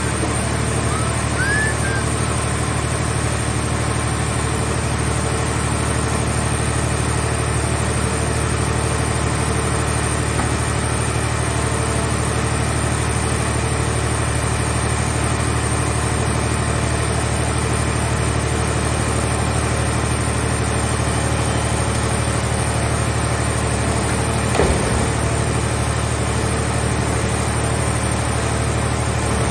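Engine of a portable scrap car baler's hydraulic power unit running steadily at a constant low drone, with a single brief knock about 25 seconds in.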